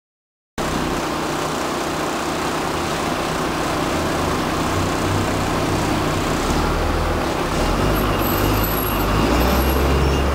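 Street traffic noise, cutting in abruptly about half a second in, with a single-deck diesel bus's engine growing louder as the bus drives up and passes close by during the second half.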